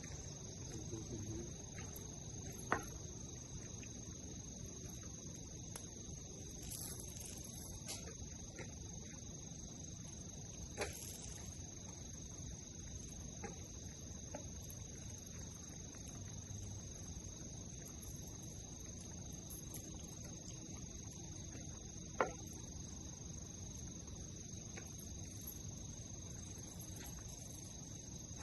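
Crickets trilling steadily in a high, thin tone. A few sharp clicks stand out, the loudest about two-thirds of the way through.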